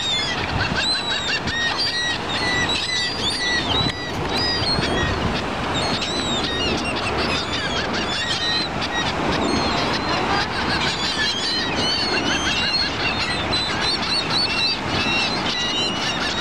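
A flock of gulls calling over and over in short, overlapping cries, over a steady rush of surf and wind.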